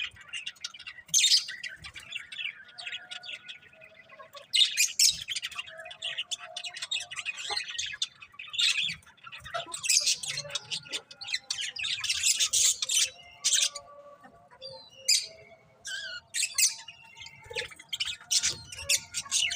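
Pet budgies (budgerigars) chirping and squawking in irregular bursts of high, scratchy chatter, broken by short pauses.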